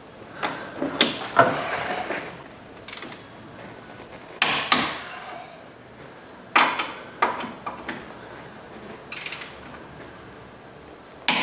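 Scattered metallic clicks and clanks of tools and brake parts being handled, about nine short knocks spaced irregularly, a few of them ringing briefly.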